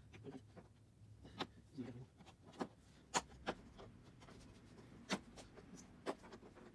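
A scattered series of sharp clicks and taps, about six spread over several seconds, with light handling noise between them: hands working on a flat-panel TV laid on the bench.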